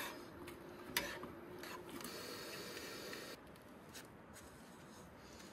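Metal spatula scraping scrambled eggs around a frying pan on a camp stove, with a few sharp utensil clicks; the loudest click comes about a second in, and the scraping dies down after about three seconds.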